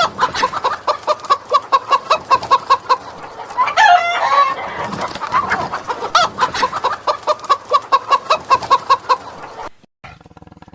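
Chickens clucking in a rapid even run, about four to five clucks a second, with a short squawk about four seconds in. The clucking stops about a second before the end.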